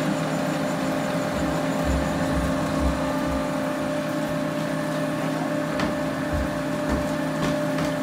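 Fuji Xerox DocuPrint C3300 colour laser printer running its start-up calibration: a steady mechanical hum of its motors and fans, with a few light clicks in the second half.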